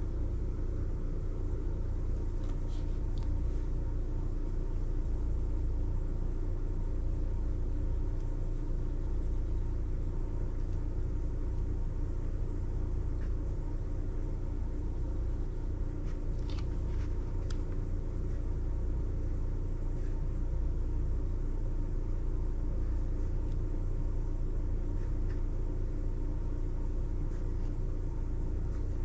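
Steady low rumble with a faint constant hum, broken only by a few faint clicks.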